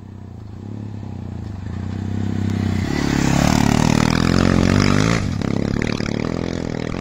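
Adventure motorcycle riding past on a dirt track: the engine grows louder as it approaches, is loudest as it passes about three to five seconds in, then drops a little as it moves away.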